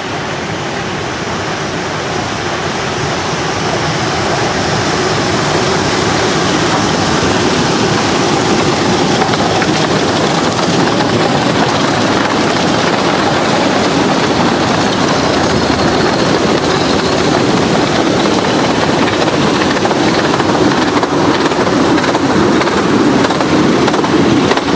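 A cavalcade of several 15-inch-gauge steam locomotives coupled together, chuffing and blowing steam as they run past. The sound grows louder over the first few seconds as they approach, then holds loud and steady.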